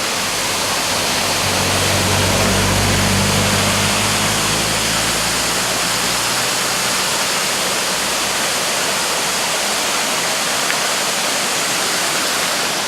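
Small forest waterfall rushing steadily. A low engine hum swells in over the first couple of seconds and fades away by about halfway through.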